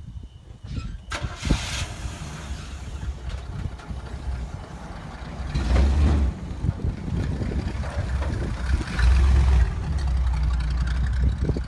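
Old pickup truck's engine starting about a second in, then running, with two louder swells of revving, one near the middle and a longer one toward the end.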